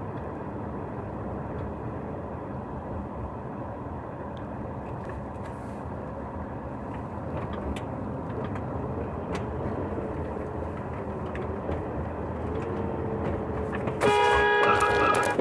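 Steady road and engine noise inside a moving car's cabin, then near the end a car horn sounds loudly in one long blast of about a second and a half.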